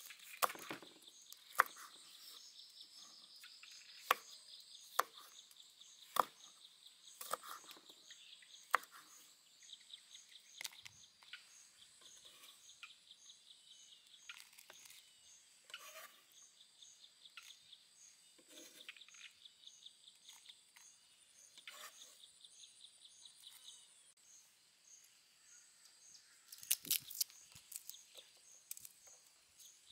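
Cleaver chopping red chillies on a wooden chopping board in single sharp strokes about a second apart, then softer knocks and clicks as root slices drop into a stone mortar and garlic is handled near the end. Insects chirp steadily underneath until most of the way through.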